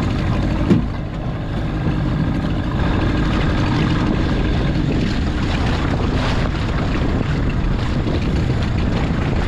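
Wind buffeting the microphone over water lapping around a small open boat at sea, with one short knock about a second in.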